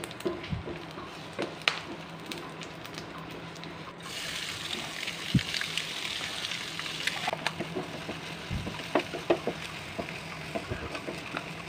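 Spices frying in oil in a pan with a steady sizzle and scattered clicks of a spatula against the pan. About four seconds in the sizzle grows louder and brighter as chopped boiled eggs go into the hot masala and are stirred.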